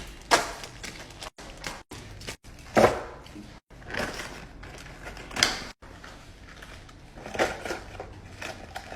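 Plastic food containers and packaging being handled and set down while a fridge is organized: a run of knocks, clatters and rustles, about five of them louder than the rest. The sound drops out suddenly several times, as at edit cuts.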